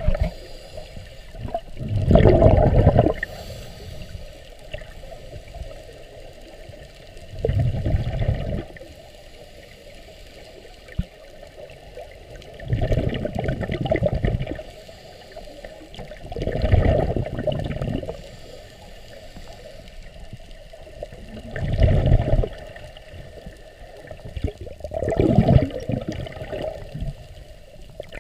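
Scuba diver breathing through a regulator underwater: a bubbling rumble of exhaled air about every four to five seconds, six times, with a quieter hiss between breaths.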